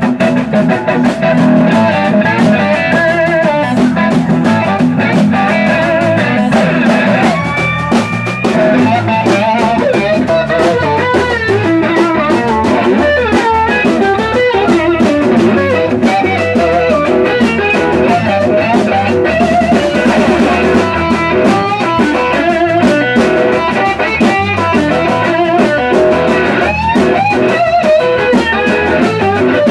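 Live blues-rock band playing: electric slide guitar leads with gliding, wavering notes over bass guitar and drums.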